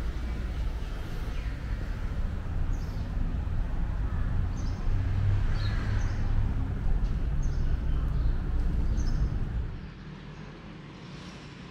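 A steady low rumble with birds chirping a few short times over it; the rumble drops away suddenly near the end.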